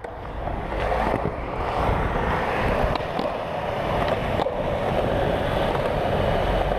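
Skateboard wheels rolling steadily over concrete, with a few sharp clacks of the board.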